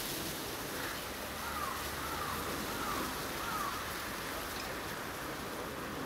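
A bird calls four short notes, each falling in pitch and evenly spaced, over a steady hiss.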